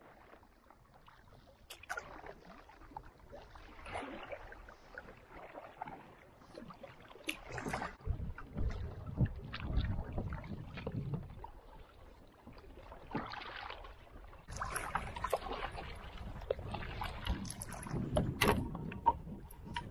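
Canoes being paddled on a choppy lake: irregular paddle strokes swishing and splashing, water slapping against the hull, and gusts of wind buffeting the microphone, stronger in the second half.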